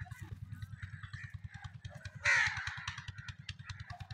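Crows cawing, with one loud caw a little over two seconds in, over the steady, rapid low thudding of a belt-driven engine running.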